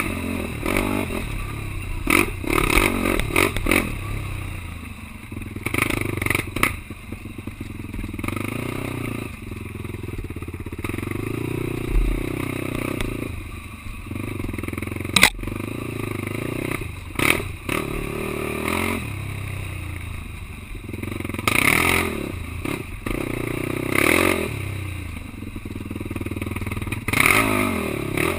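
Quad bike engine running hard, its pitch rising and falling as it revs, with frequent sharp knocks and clatter over rough ground.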